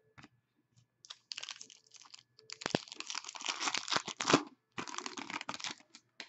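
Foil wrapper of a 2015-16 Upper Deck Contours hockey card pack being torn open and crinkled by hand. It comes as a run of crackling bursts from about a second in until near the end, loudest in the middle.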